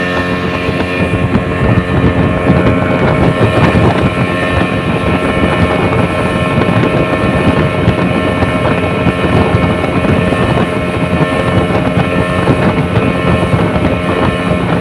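A boat's motor running steadily under heavy rushing water and wind noise.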